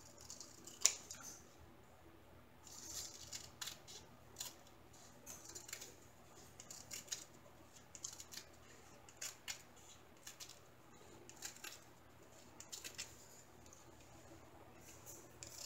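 Scissors snipping in short, irregular cuts through the printed legend strip along the edge of a diamond painting canvas, with faint handling and rustling between the snips.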